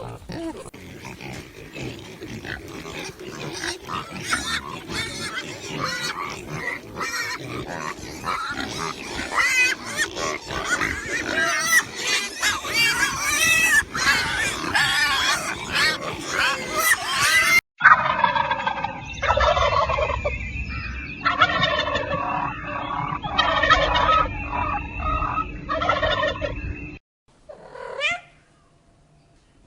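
A flock of domestic fowl calling, many overlapping calls at once; after a cut, a second stretch of separate, repeated fowl calls. Short rising-and-falling calls from another animal start near the end.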